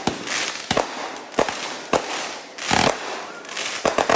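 Fireworks going off: a string of sharp bangs, roughly one every half second to second, with crackling hiss between them, a longer burst about three seconds in and a quick cluster of three pops near the end.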